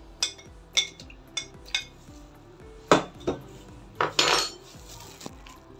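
Steel spoon clinking and scraping against a plate as kiwi pieces are pushed off it into a blender jar. A string of sharp clinks: several light ones at first, then a loud clink about three seconds in and a longer, louder scrape about four seconds in.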